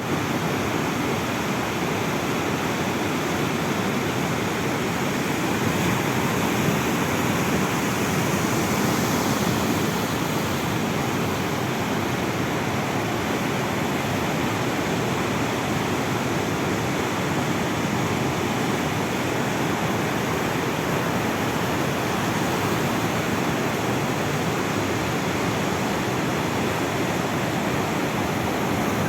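Sea waves breaking on the shore: a steady, unbroken rush of surf.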